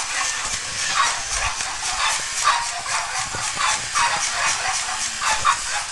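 Electronic toy giving a run of short, high yips about twice a second over a steady hiss.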